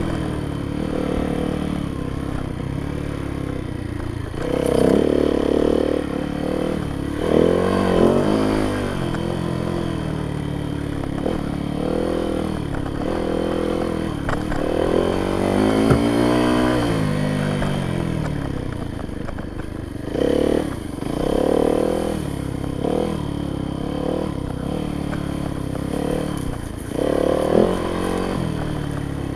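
Yamaha YZ dirt bike engine being ridden, its pitch rising and falling again and again as the throttle is opened and closed, with several louder surges. A sharp knock comes about halfway through.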